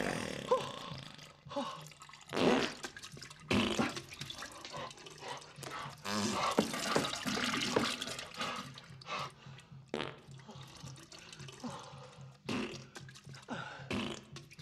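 A toilet gurgling, sputtering and splashing in irregular bursts, like a broken toilet.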